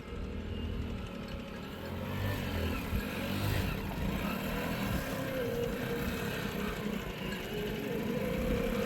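A motor vehicle's engine running, with a steady low rumble that grows louder over the first few seconds and then holds.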